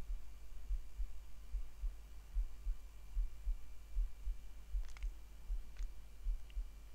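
Low, uneven throbbing rumble from a motorized display turntable turning, with a few faint clicks near the end.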